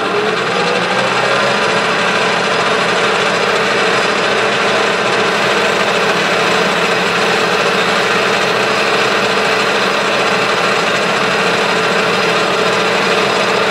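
Clausing 6903 metal lathe running, with a solid carbide boring bar cutting inside a small bore in the spinning part. The loud, steady cutting hiss sits over the machine's hum, and a tone rises in pitch during the first second or so.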